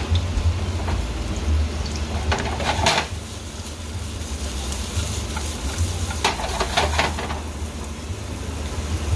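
Sliced onions sizzling in hot oil in a frying pan over a steady low rumble, with two short clatters of the pan being shaken and tossed on the gas stove's grate, about two and a half seconds in and again near six seconds.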